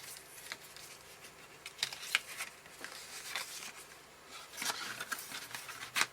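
Card pieces and metal brads being handled and adjusted by hand: light rustling of card with small scattered clicks.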